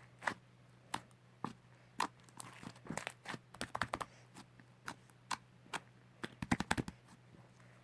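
Slime being squeezed and pressed by hand, giving sharp, irregular popping and clicking snaps. A quick run of clicks comes about six and a half seconds in.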